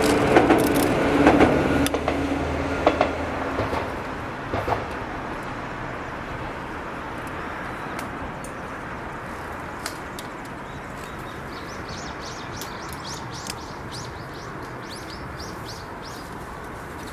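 Izu Kyuko Class 100 single-car electric train running past and fading away, with a steady tone and a run of sharp clicks over the first few seconds. After that a steady hush, with short bird chirps near the end.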